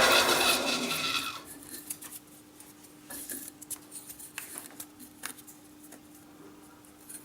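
Metal lathe cutting a small part, the tool squealing, fading out about a second in as the cut stops. A steady low hum and scattered light clicks follow.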